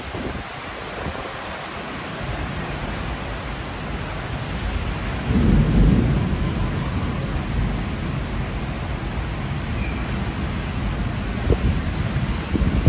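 Heavy rain pouring steadily, with a low rumble of thunder swelling about five seconds in and another near the end.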